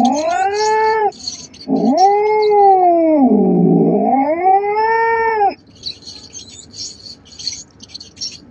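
Domestic cat yowling (caterwauling). One call ends about a second in, then a long, drawn-out yowl of nearly four seconds dips and rises in pitch. For the last few seconds only a faint, rapid high ticking remains.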